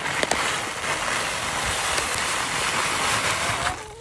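Dumor 5-grain scratch grain pouring out of its paper sack in a steady rush, with a few sharp clicks, stopping shortly before the end.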